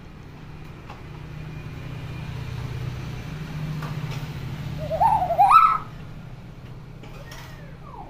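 Hill myna calling: a low hoot-like hum that swells over several seconds, then a loud wavering call rising in pitch about five seconds in.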